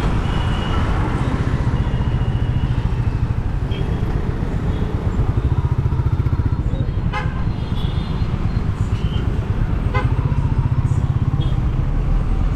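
Royal Enfield Meteor 350's single-cylinder engine running steadily while cruising, its exhaust pulsing evenly. There are a few short horn toots from traffic.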